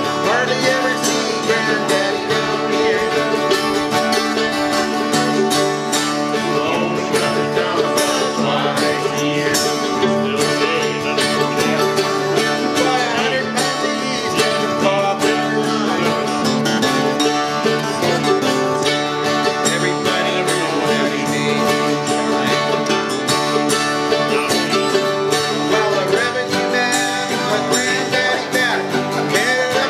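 Mandolin and acoustic guitar played together in a bluegrass/country style, the guitar strummed and the mandolin picked over it at a steady, even level.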